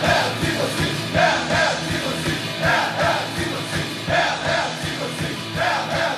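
Group of voices chanting in rhythm over music with a steady beat, a two-part shout repeating about every one and a half seconds.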